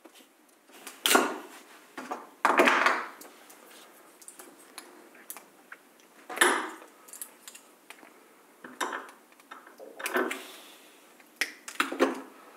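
Side cutters snipping component leads on a small circuit board, with a string of separate metallic clicks and clinks as the board and tools are handled.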